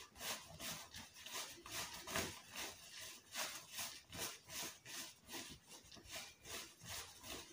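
Faint cloth rustling and rubbing as hands turn and handle a hand-sewn fabric hair bonnet: a quick, uneven run of soft rustles, several a second.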